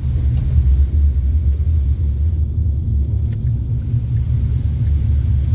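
Steady low road and engine rumble inside a moving taxi.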